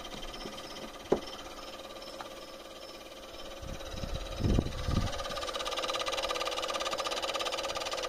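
Alarm of a Dometic RCB 42 P thermoelectric fridge buzzing with a rapid clicking, louder from about five seconds in; the owner thinks the clicking is probably a busted alarm. A sharp click about a second in and a couple of knocks around four to five seconds in.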